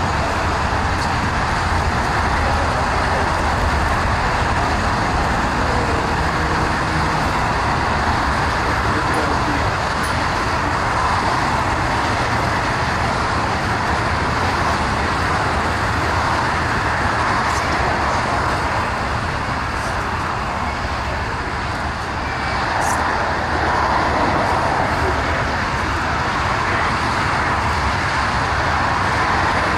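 Airbus A380 jet engines running at taxi power: a steady, even rushing noise with a low rumble beneath it, holding level throughout.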